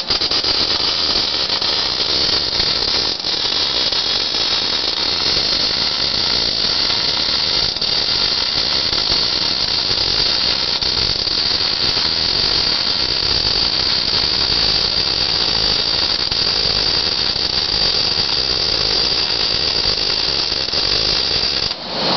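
MIG/MAG welding arc burning steadily as a weld bead is laid on a steel plate: a continuous hiss with a high, even whine over it. The arc cuts off near the end.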